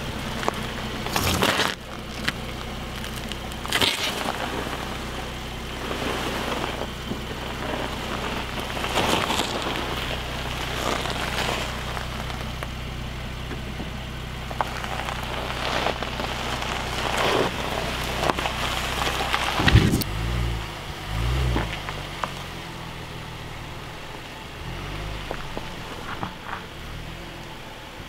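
Range Rover Velar crawling slowly over a rocky dirt trail: the engine runs low and steady while the tyres crunch and crackle over gravel and stones. About two-thirds of the way through comes a sharp knock, followed by uneven low rumbling.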